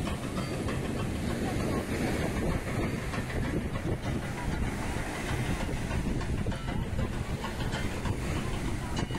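Wind buffeting the microphone in a steady low rumble, over the wash of surf.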